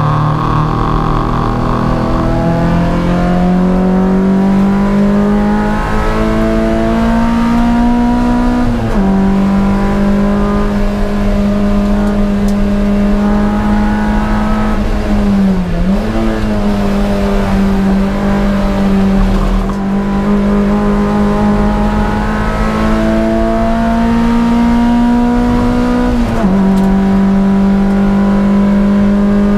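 Toyota MR2 race car's engine heard from inside the cabin, pulling hard on track. The pitch climbs slowly, drops sharply with an upshift about nine seconds in, dips briefly and recovers in the middle, and drops with another upshift near the end.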